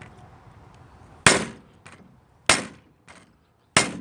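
Hammer blows straightening the bent rear wheel rim of a motorized bicycle: three sharp strikes about a second and a quarter apart, each ringing briefly.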